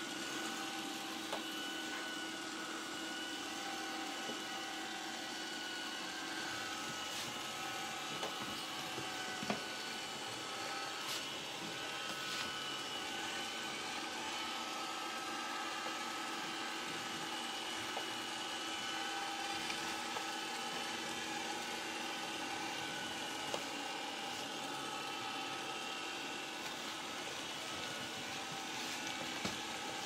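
Xiaomi Robot Vacuum S10 running steadily on a hardwood parquet floor: an even whir from its suction fan and spinning brushes with a steady whine over it, and a few faint clicks now and then.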